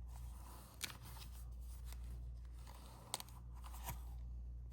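Cardstock pop-up card being handled and opened: a few soft paper clicks and rustles over a steady low electrical hum.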